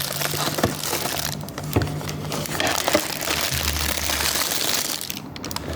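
Plastic toy packaging crinkling and crackling as it is handled and opened, with many small clicks and rustles.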